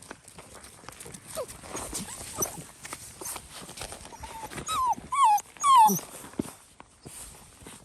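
Seven-week-old Labrador puppies whimpering, with three loud, high whines in quick succession about five seconds in. Light clicks and rustling run underneath.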